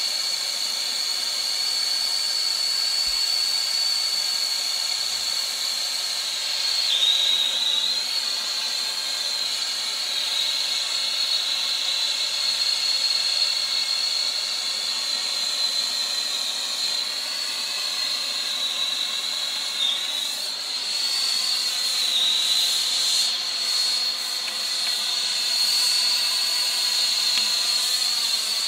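Acetylene torch flame hissing steadily while heating a copper pipe and coupling for soldering. Over the hiss runs a high steady whistle that dips briefly in pitch a few times.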